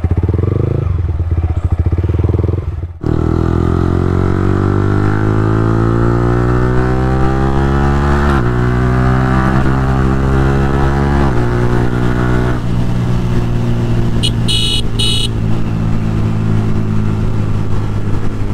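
Yamaha R15 V4's single-cylinder engine breathing through an aftermarket exhaust. For about three seconds it runs at a standstill with a fast pulsing beat. Then it is ridden: the pitch climbs under acceleration, drops suddenly at two upshifts, and settles into a steady cruise.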